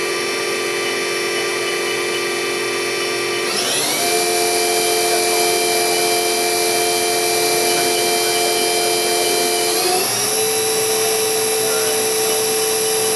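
Haas VF-3 machining center spindle running in a spindle speed test, a steady whine made of several tones. The pitch steps up twice, about three and a half seconds in and again about ten seconds in, as the spindle speed is raised from 3,000 RPM.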